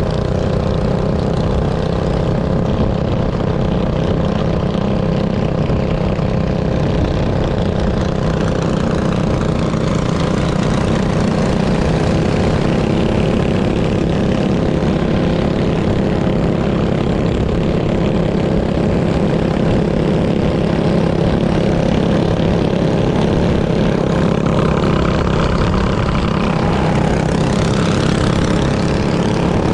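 A minibike's small engine running at a steady, unchanging pitch.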